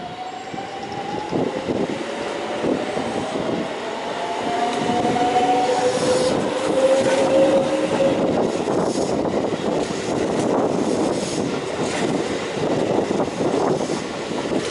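JR West 207 series electric train pulling away from the platform, its traction motors whining in a rising pitch as it accelerates through the first several seconds. Wheel and rail rumble then grows louder, with a run of clicks and clatter as the cars pass.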